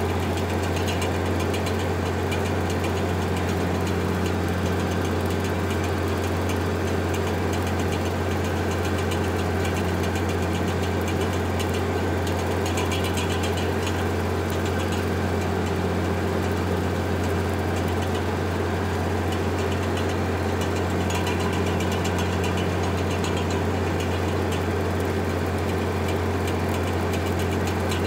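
A Farmall 1066 tractor's six-cylinder turbo-diesel engine running steadily as it drives along mowing, with an even low drone throughout.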